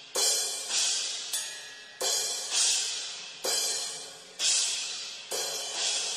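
Drum-kit cymbals struck one at a time for an overhead-microphone soundcheck, about one or two strikes a second. Each hit is a bright crash that rings out and fades before the next.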